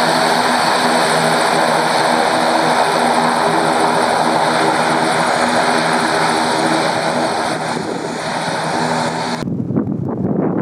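ATR 72-600 turboprop airliner taxiing close by, its two Pratt & Whitney PW127 turboprop engines running with a steady propeller drone and a high turbine whine, easing a little as it turns away. About nine seconds in the sound cuts off sharply, leaving a low rumble.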